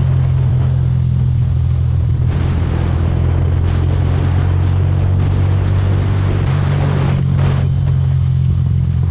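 Mahindra Mojo 300's single-cylinder engine running at a steady cruising speed, its low hum unchanging, with wind noise over it.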